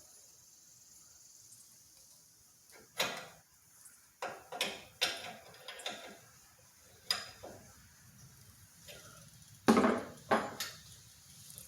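Irregular sharp knocks and clanks of metal handling as a pressure washer hose's quick connect fitting is clamped in a clamp-on bench vise and loosened off the hose, the loudest pair near the end.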